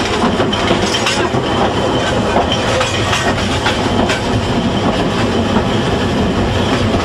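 A 1902 German-built steam train running along the track, heard from aboard: the carriages rattle and the wheels clatter steadily.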